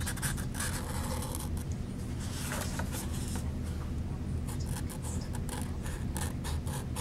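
Felt-tip marker scribbling back and forth on a paper cup, colouring in an area with quick scratchy strokes, about four a second near the end, over a low steady hum.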